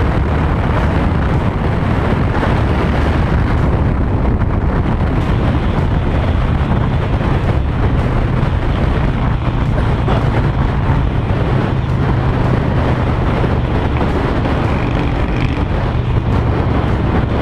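Honda Shadow 750's V-twin engine running through a loud modified exhaust with a fishtail tip, holding a steady pace under way, with heavy wind noise on the microphone.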